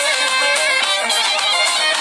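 Music: a traditional folk tune with a lead instrument playing a wavering, ornamented melody at a steady loudness.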